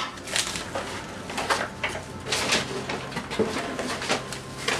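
Cardboard and paper packaging rustling and scraping in irregular crinkles as a boxed kitchen knife and other items are unpacked.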